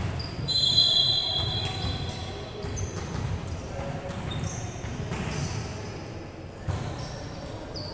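Indoor volleyball play on a gym court: sneakers squeaking on the floor in short high squeaks, the longest and loudest about a second in, with several sharp thumps of the ball being hit and a steady echoing hall murmur.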